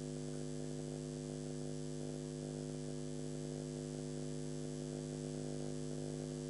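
Steady electrical mains hum with a faint hiss underneath, unchanging throughout.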